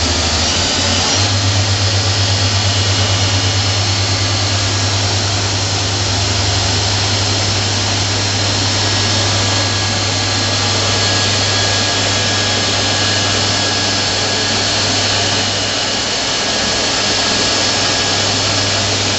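Fadal VMC4525HT CNC vertical machining center running, its spindle turning while the table moves under it: a loud, steady machine whir with a low hum that weakens about sixteen seconds in.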